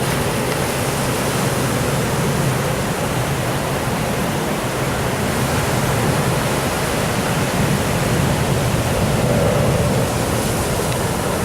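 Steady rushing noise of surf breaking on the beach, even and unbroken.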